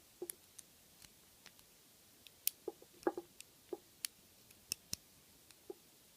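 Light, irregular metallic clicks and ticks of a lock pick working the pins of an American Padlock 5570 six-pin padlock under tension, as pins are lifted and set one at a time; the clicks are sparse, a few bunched together around the middle.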